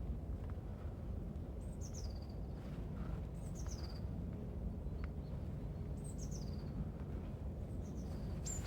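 A small songbird calling, each call a short high note sliding down in pitch, repeated about five times a couple of seconds apart, over a steady low background rumble.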